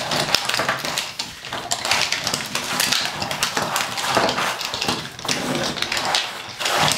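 Several Thomas & Friends toy trains pushed and scrubbed back and forth together through wet paint on a canvas: a continuous scraping and clattering, full of small clicks.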